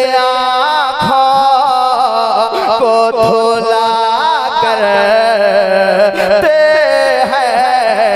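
A man's voice singing a line of an Urdu devotional kalam (naat), drawn out on sustained, wavering notes with quick ornamental turns of pitch.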